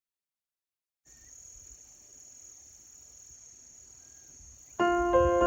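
Silence, then from about a second in a steady high-pitched trill of crickets, with a couple of faint bird chirps. Near the end, louder piano music comes in.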